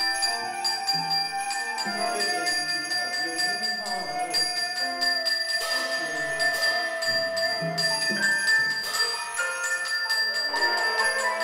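Small jazz group playing live: flute and piano lines over drums, with a high metallic ringing of bells and cymbals above the stepping low piano notes.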